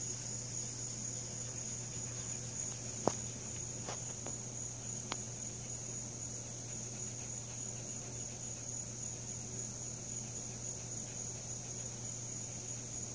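Steady, high-pitched chirping of insects over a low hum, with one sharp click about three seconds in and a couple of fainter ticks soon after.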